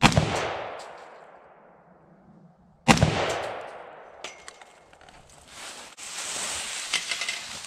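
Two rifle shots about three seconds apart, each fading off in a long echo. Near the end come a few small clicks and a rustling in dry leaves as the shooter moves.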